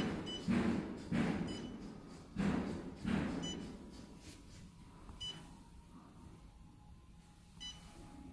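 Touchscreen control panel of a UV phototherapy unit beeping as its buttons are pressed: five short high beeps spread over a few seconds. A run of dull thuds comes in the first three seconds.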